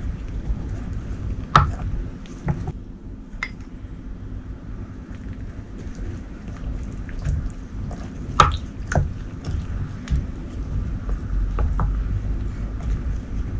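Wooden spoon stirring spiced water in a glass bowl: liquid sloshing and dripping, with a few sharp taps of the spoon against the glass, the loudest about one and a half and eight and a half seconds in, over a low steady rumble.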